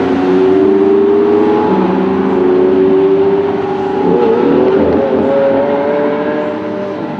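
Lamborghini Aventador's V12 engine at high revs on track, its pitch climbing slowly, with a brief break about four seconds in, then climbing again and fading a little near the end.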